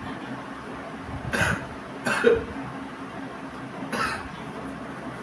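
A person coughs three short times: about a second in, just after two seconds (the loudest), and near four seconds. The coughing is brought on by snuff sniffed up the nose in an attempt to make them sneeze; the snuff is producing coughs rather than sneezes.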